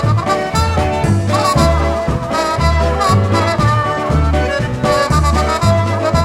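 Instrumental passage by a polka dance band: brass and saxophones playing the tune over a steady bouncing bass beat of about two a second.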